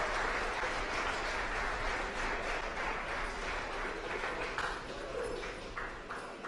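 A crowd applauding and cheering main engine cutoff and stage separation, slowly dying down.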